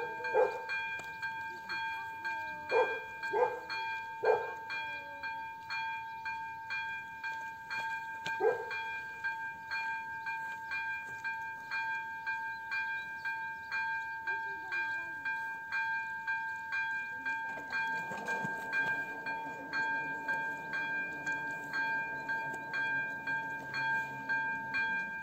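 AŽD electronic level-crossing bell (type Elektronický 02) ringing steadily, a bright two-tone chime repeated about twice a second, warning of an approaching train. A few loud barks sound over the first few seconds and once more about eight seconds in, and a lower hum joins about three-quarters of the way through.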